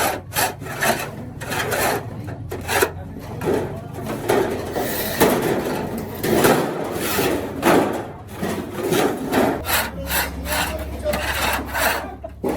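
Hand-tool work: a run of irregular rough rasping strokes, about two or three a second.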